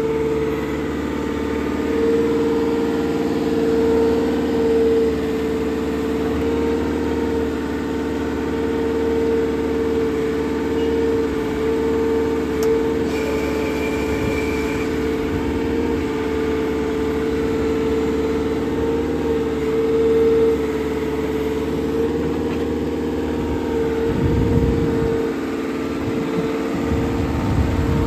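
2016 JCB 3CX backhoe's diesel engine running steadily while the backhoe works, with a steady whine over the engine hum. A short higher tone sounds about halfway through, and a few low rumbles come near the end.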